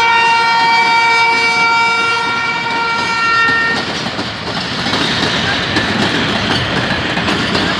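A PHA-20 diesel locomotive's air horn sounds one long multi-tone blast to warn trespassers off the line and cuts off about four seconds in. The Hazara Express coaches then roll past with a steady rumble and wheels clattering over the rail joints.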